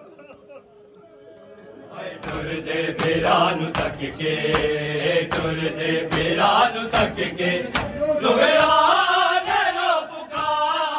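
A group of men chanting a noha in unison, growing loud about two seconds in. Sharp hand slaps on the chest (matam) keep a steady beat through the chanting.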